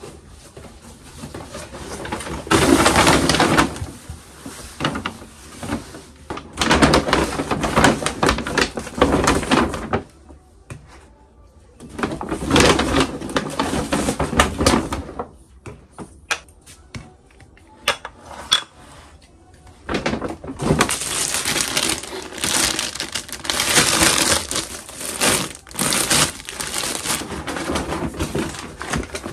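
Paper and plastic shopping bags rustling and crinkling in several bursts as groceries are unpacked, with a few light knocks of items being set down on the floor in between.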